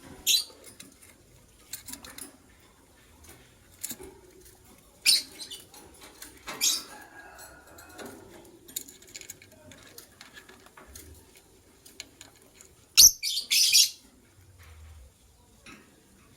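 White lovebirds giving short, sharp, high-pitched chirps in scattered bursts, the loudest cluster near the end. Faint clicks and rustling come in between.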